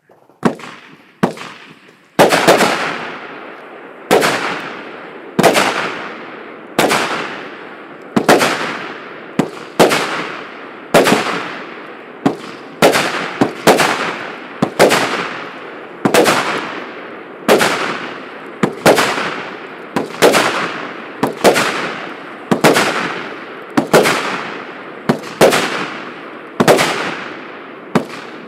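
A 148-shot, 0.8-inch consumer fireworks cake firing shot after shot: a sharp bang about every second and a half, each fading away over about a second, with a few lighter pops in between.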